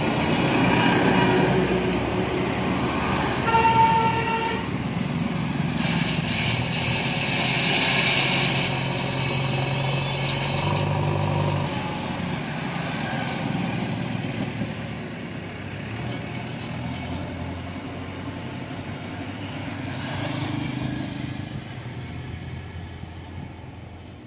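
Motor traffic with engines running and vehicles passing, and a horn sounding once, briefly, about three and a half seconds in. The sound fades away near the end.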